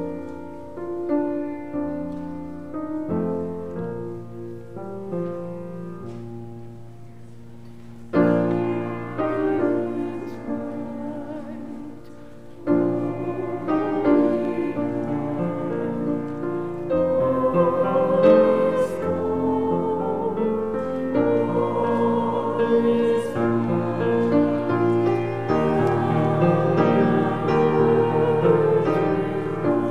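Piano playing a slow hymn, sparse and soft at first, then fuller and louder from about eight seconds in; in the second half a congregation sings along with the piano.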